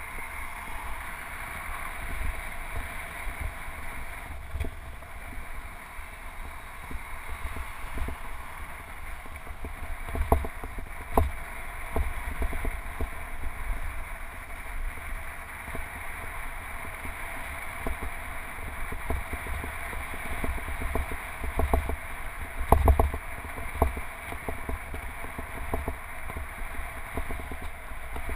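Wind rushing over a handlebar-mounted action camera on a moving road bike, with a steady rumble from the tyres on pavement. Several sharp knocks from bumps in the path, a cluster about a third of the way in and the loudest about five seconds before the end.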